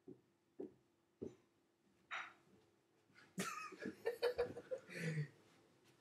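A man laughing under his breath: a few soft chuckles about half a second apart, a breathy laugh at about two seconds, then a louder stretch of laughter from about three and a half to five seconds in. A faint steady hum runs underneath.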